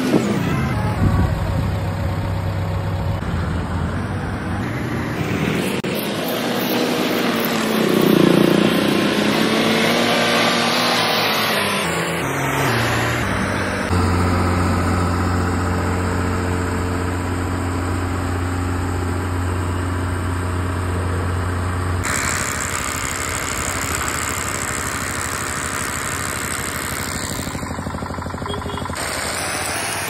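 Heavy diesel machinery: an engine revs up and falls back about a third of the way in, then a steady low engine drone runs through the middle, with the sound changing abruptly about two-thirds through.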